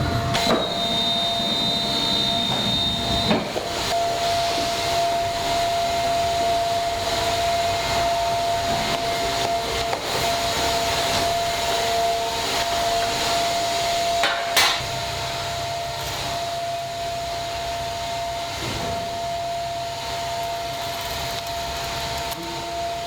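Factory machinery running steadily, a constant mid-pitched tone over a broad noise, with one sharp knock about two-thirds of the way through.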